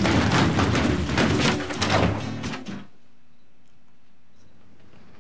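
Rubber balloons being shoved aside, a busy jumble of rubbing and bumping with music underneath, cutting off about three seconds in to quiet room tone.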